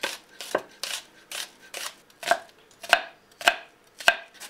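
Kitchen knife slicing a raw onion on a wooden cutting board: about nine sharp cuts, roughly two a second, each blade stroke knocking on the wood.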